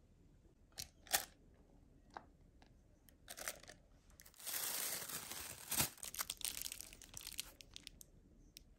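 A few sharp clicks and taps, then a longer stretch of crinkling and rustling from a thin disposable plastic piping bag as it is filled with cream and handled.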